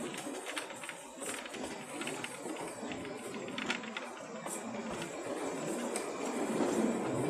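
Narrow-gauge train running on the Kalka–Shimla line: a steady clattering rattle with many quick clicks from the wheels and carriage.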